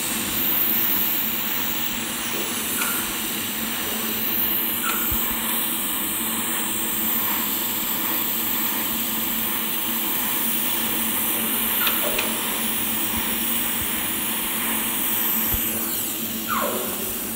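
TIG welding arc on a stainless steel pipe root pass: a steady hiss over a low hum, with a brief falling tone near the end.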